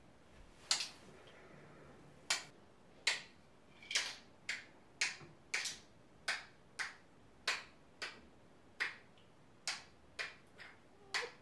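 A series of about sixteen short, sharp clicks at an uneven pace, roughly one or two a second.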